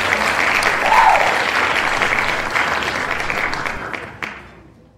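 Audience applause, a steady crackle of many clapping hands, fading out over the last second or so.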